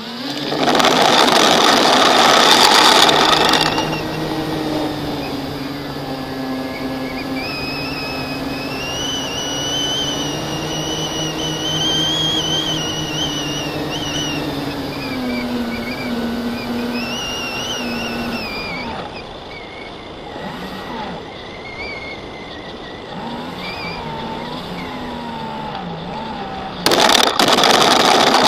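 FPV quadcopter's brushless motors and propellers whining, the pitch wandering up and down as the throttle changes, with loud rushes of noise about a second in and again near the end.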